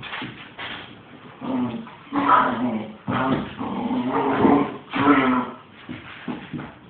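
Two dogs, a Lab/Husky mix and a young Rottweiler/boxer mix, play-fighting and vocalizing with growls and whines in several loud bouts between about a second and a half and five and a half seconds in.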